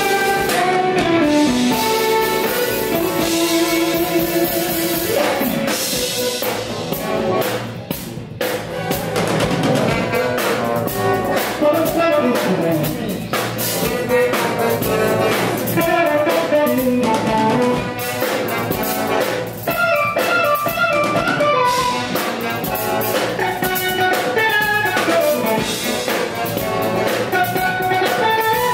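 Live jazz band playing an instrumental passage, electric guitar over bass guitar and drum kit.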